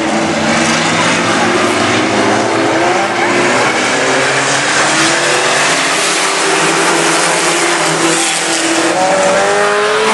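A pack of mini pickup race trucks running hard around an oval track, several engines going at once, their pitch rising and falling as they accelerate and pass.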